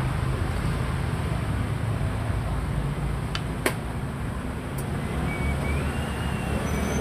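A steady low background rumble, with one sharp click a little past halfway as a xiangqi piece is set down on the wooden board, and a couple of fainter ticks around it.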